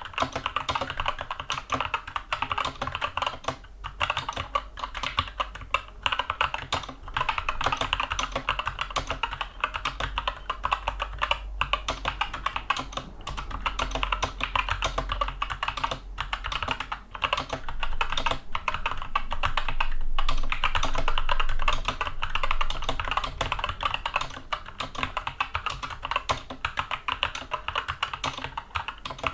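Continuous, fast typing on a Skyloong SK64 mechanical keyboard with tactile Gateron Brown switches: a dense stream of key clicks and bottom-outs.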